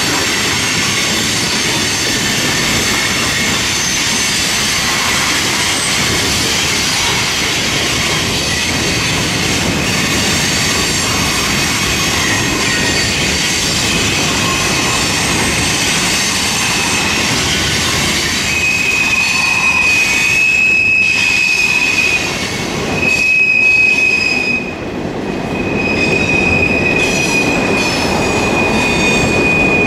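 Freight cars rolling past on a curve, their steel wheels squealing against the rail over a steady rumble of wheels and track. Several high squeals sound together at first; about two-thirds in one strong, steady squeal takes over, breaking off twice briefly.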